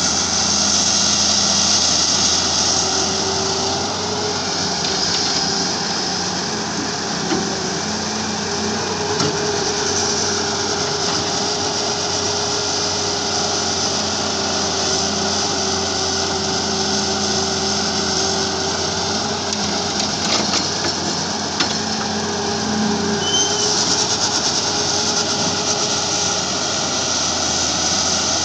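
Halla HE 130W wheeled excavator's diesel engine running steadily under load as it digs and loads soil, with a few short knocks from the working bucket.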